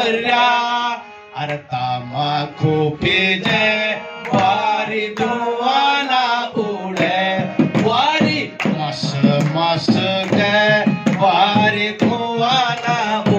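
Harmonium playing a folk Holi tune, with hand-drum beats and men's voices singing along.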